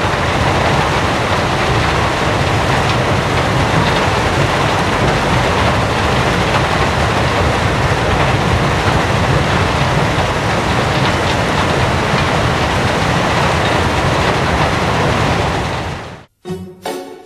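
Loud, steady rushing noise with no clear tone, cutting off suddenly about sixteen seconds in, when music with a steady beat begins.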